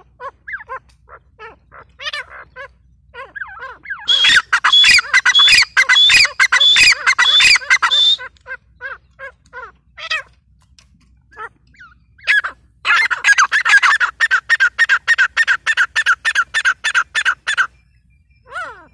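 Grey francolins calling. Scattered short calls give way to two long runs of rapid, loud, harsh repeated notes, the first about four seconds in and the second after a short lull, each lasting around four to five seconds.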